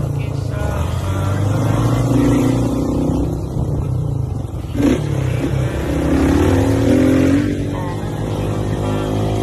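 Small motorcycle engine revving up and down in repeated surges as the rider lifts into a wheelie, with a short sharp knock about five seconds in.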